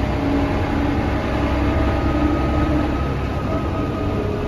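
Cabin noise inside a 1999 Mercedes-Benz O405NH bus under way: a steady low rumble from the engine and drivetrain, with faint steady whining tones over it.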